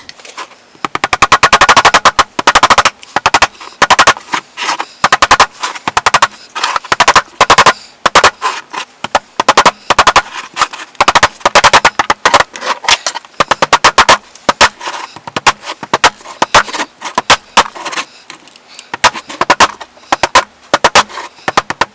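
Rapid, irregular clicking and clattering, many sharp hits a second, from the hard plastic case of a DeWalt 20V MAX battery and its spot-welded 18650 cell pack being forced and worked together to seat the pack.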